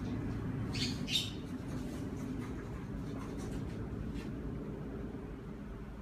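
A bird chirping, two short high chirps about a second in, over a low steady background rumble.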